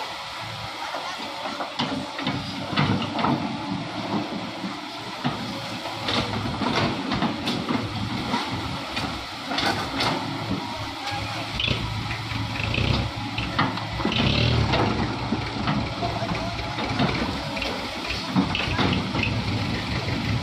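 Heavy diesel earthmoving machinery running, its engine a steady low drone, with scattered knocks and clatter throughout.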